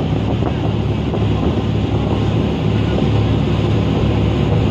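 Wind buffeting the microphone on the deck of a fast passenger boat under way, over the steady low drone of its engines and the rush of its wake.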